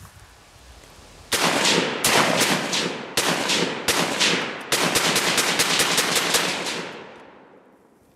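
AR-15 semi-automatic rifle in .223 fired in a long rapid string of shots, starting about a second in and coming faster in the second half. This is a magazine being emptied; the echo of the last shots fades away near the end.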